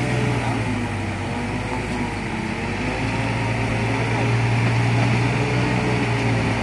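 Diesel engine of a Hino truck heavily loaded with marble blocks, running steadily under load at crawling speed, growing a little louder in the second half as the truck draws nearer.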